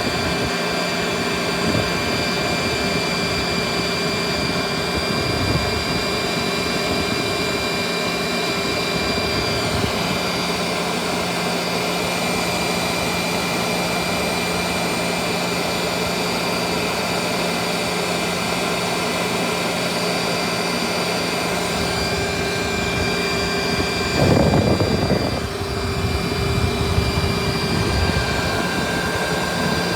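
Vacuum cleaner motor running steadily with a constant whine, blowing air from its exhaust. About three-quarters of the way through, a louder rush of noise lasts about a second.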